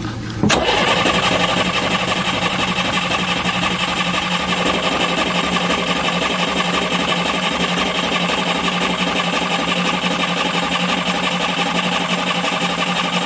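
Old marine diesel engine turning over on its starter motor, a steady cranking that sets in about half a second in and never catches: air in the fuel line keeps it from firing.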